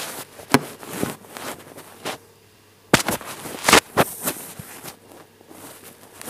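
Handling noise from a phone being moved about: rustling and rubbing with several sharp knocks and clicks against the microphone, loudest about half a second in and again around three and four seconds in.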